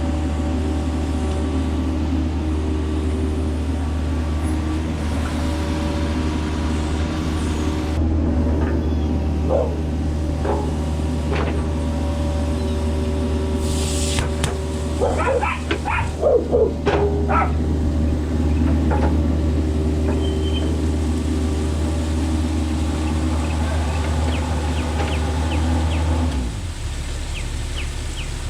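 Mini excavator's diesel engine running steadily, with a run of metal clanks and short squeals from the bucket and linkage partway through. The engine note drops suddenly near the end.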